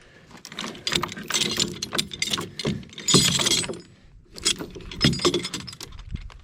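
Load binder on a log load being released, its chain clanking and rattling in a run of irregular metallic knocks, with two bursts of bright jangling about a second and a half and three seconds in.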